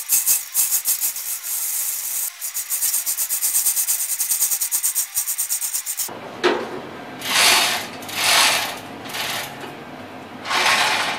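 Manual chain hoist (chain fall) being hauled by hand, lifting a load: its chain rattles through the hoist in a fast, even run of rasping clicks. About six seconds in this gives way to several separate rasping strokes, about a second apart.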